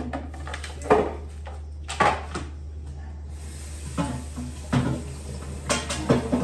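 Knocks and clatters of plastic fridge drawers and containers being handled and set down, over a steady low hum.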